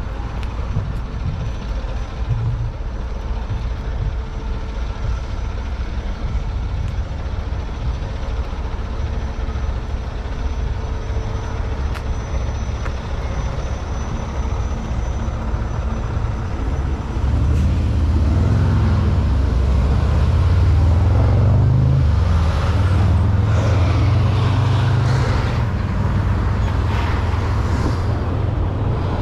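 Street traffic rumbling steadily; a little over halfway through, a vehicle's engine grows louder as it passes close by, then fades somewhat near the end.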